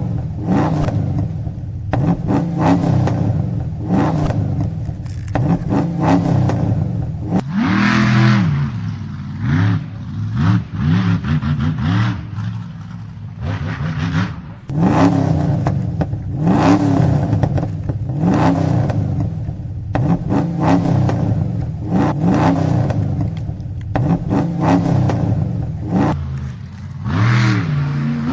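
Car engine revving over and over, its pitch rising and falling in repeated vrooms every second or two.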